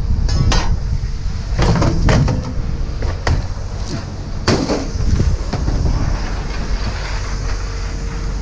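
Irregular clanks and rattles of scrap metal being pulled off a trailer, over a steady low rumble.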